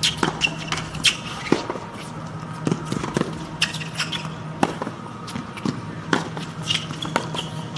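Tennis rally on a hard court: sharp racket strikes and ball bounces, irregularly spaced about half a second to a second apart, over a steady low hum.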